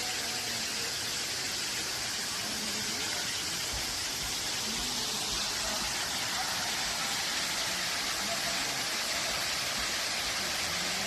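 Steady rushing water, a constant even hiss with most of its energy in the high range.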